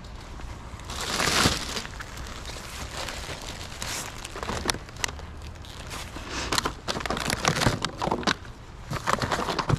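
Plastic bags and packaging crinkling and rustling, with scattered short knocks and clicks, as bagged potatoes and other discarded food are picked through in a dumpster; a louder rustle comes about a second in.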